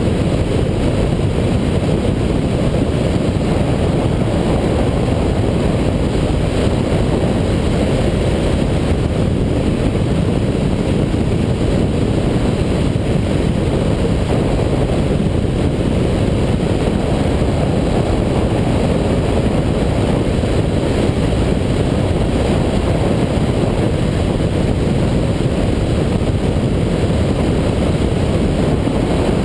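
Yamaha FZ1 inline-four motorcycle cruising at steady road speed: an even rush of wind and road noise with the engine running underneath.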